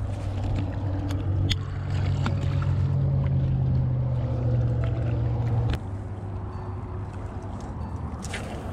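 A low, steady motor drone that drops off abruptly about six seconds in, with scattered small clicks over it.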